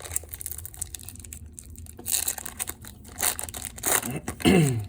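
Crinkling and rustling of trading-card packaging and cards being handled, in several short bursts. Near the end, a short voiced sound from the man, falling in pitch.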